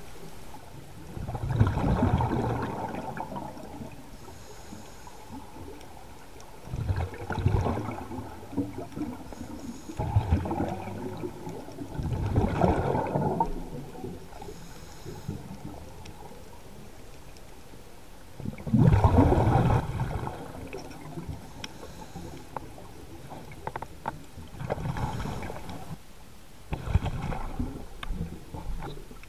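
Scuba diver's exhaled air bubbling out of a regulator, recorded underwater: a burst of bubbles every few seconds, each lasting a second or two, over a steady low hiss.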